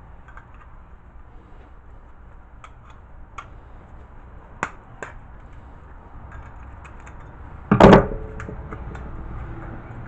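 Pliers clicking against the small metal housing of a microwave turntable motor as it is pried apart, a handful of sharp, separate clicks, then one loud, brief metallic clatter a little before the end.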